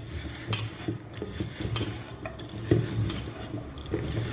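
A spoon stirring a thick flour-and-spice batter in a bowl, knocking and clinking against the bowl in irregular strokes a few times a second.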